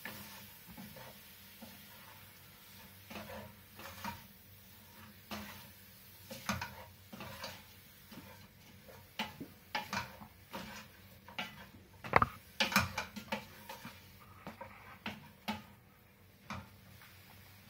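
Wooden spoon stirring chicken pieces in a stainless steel pot, knocking and scraping against the pot with irregular clicks. The loudest knock comes about two-thirds of the way through.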